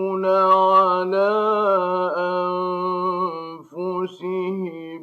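Male voice reciting the Quran in melodic tajweed, holding one long ornamented note for about three and a half seconds, then a few short sung phrases.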